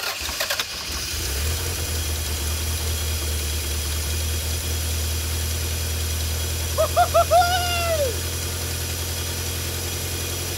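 Toyota MR2's 3S-GTE turbocharged four-cylinder engine catching and settling into a steady idle, its first run after years of sitting. About seven seconds in, a person's voice lets out three short excited calls and a longer one that falls away.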